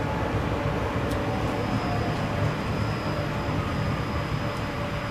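Interior running noise of a TVZ 71-931 Vityaz-M tram under way: a steady rumble of wheels and running gear with a faint mid tone. A thin high whine sets in about a second in and holds steady.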